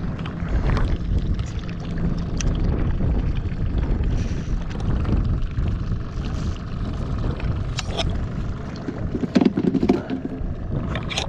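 Water lapping and splashing against a small fishing boat's hull as it trolls slowly, with wind rumbling on the microphone. There are a few louder knocks near the end.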